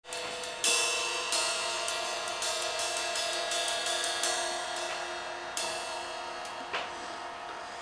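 Zildjian cymbals on a drum kit played with drumsticks: repeated strikes over a steady ringing cymbal wash, with a sharper hit shortly before the end.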